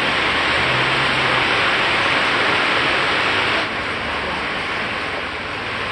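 Floodwater rushing and splashing through a flooded street, a steady loud hiss that drops a little about three and a half seconds in.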